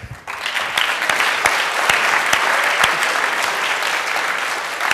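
Audience clapping: a dense round of applause that starts about a quarter second in and begins to ease off near the end.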